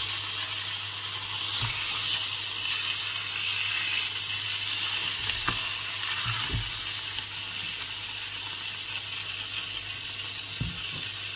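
Fish fillets sizzling in melted butter in a non-stick frying pan: a steady frying hiss, loudest at first and easing slightly over the seconds that follow.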